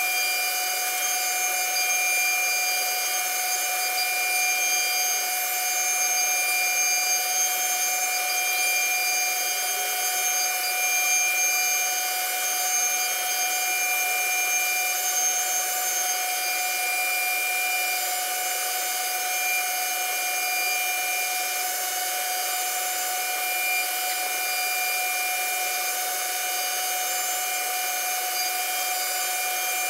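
CNC router spindle running at a steady high whine made of several fixed tones while its bit carves grooves into a wooden panel, with a hiss of cutting under it.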